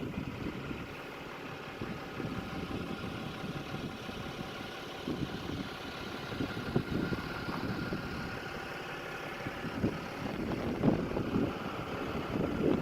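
An engine idling steadily, with irregular low rumbling surges.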